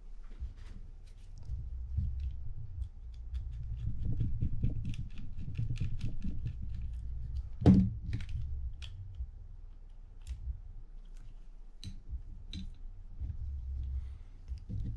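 Small clicks and taps of metal and plastic spinning-reel parts being handled and fitted together, with one louder knock about eight seconds in.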